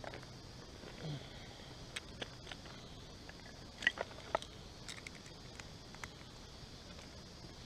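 Dry sticks and twigs clicking and knocking against each other, with small snaps, as kindling is handled and laid on a fire pit. The clicks are scattered, with the loudest cluster about halfway through.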